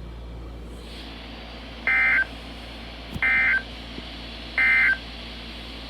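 Three short bursts of NOAA Weather Radio Emergency Alert System data tones, about a second apart: the end-of-message code that closes the alert broadcast.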